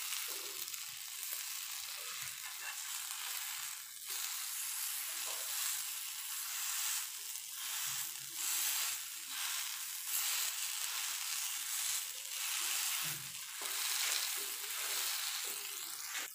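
Spice-coated cauliflower florets sizzling steadily in oil on a flat iron griddle, with a metal spatula repeatedly scraping the pan and pressing the pieces as they are turned. The pieces are pressed flat to drive out their remaining moisture.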